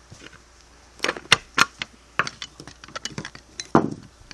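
Edwards 270 SPO fire alarm pull station being worked open through the back by hand to reset it after activation: irregular sharp clicks, clinks and knocks, clustered about a second in and again from two seconds on, with the loudest knock near the end.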